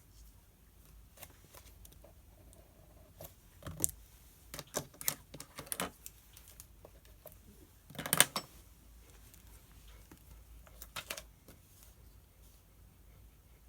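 Studying at a desk: pen and paper sounds, a run of short taps and scratches, then one louder paper rustle about eight seconds in, and a few more taps near the end.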